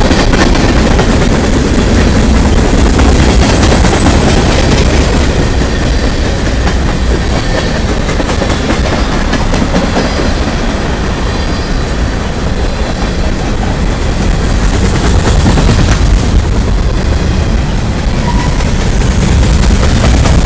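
Covered hopper cars of a freight train rolling past close by: a loud, steady rumble of steel wheels on rail, with clicking from the wheels passing over the rail joints.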